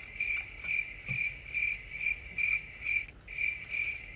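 Crickets chirping in a steady, even rhythm, about two chirps a second at one high pitch. It starts abruptly on the silence after the last word, like the stock chirping-crickets effect for an awkward pause.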